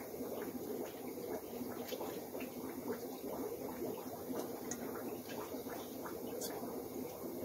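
An aquarium sponge filter being squeezed and rinsed out by hand in a jar of water: irregular small wet squelches, splashes and drips, over a steady bubbling background from the aquarium air lines.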